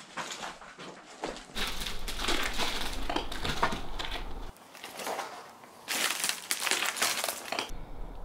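Debris crunching and crackling underfoot in a wrecked building, with sparse crunches at first, then two dense stretches of crunching, the second starting about six seconds in.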